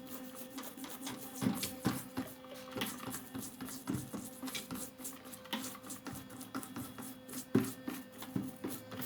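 Soft background music with sustained held notes, over irregular light clicks and taps.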